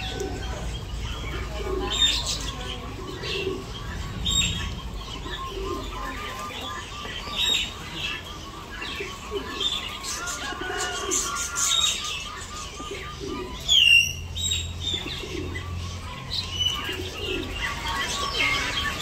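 Birds chirping and calling over a steady low background din, with a run of rapid repeated notes through the middle and one brief sharp squeal near the end.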